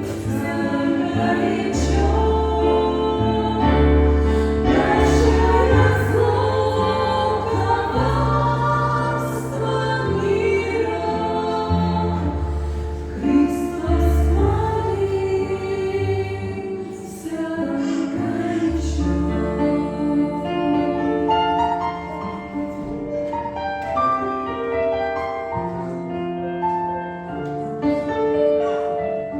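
A choir singing a Christian song over an instrumental accompaniment with a slow-moving bass line.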